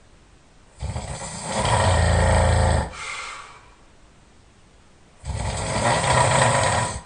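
A man snoring loudly: two long snores about four seconds apart, the first trailing off into a short, softer breath out.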